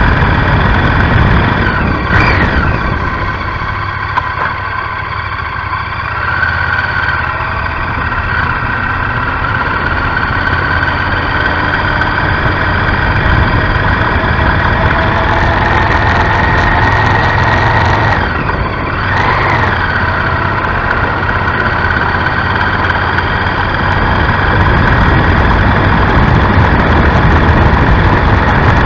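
Honda Varadero XL1000's V-twin engine running steadily while riding. The engine note dips briefly about two seconds in and again around eighteen seconds, then picks back up.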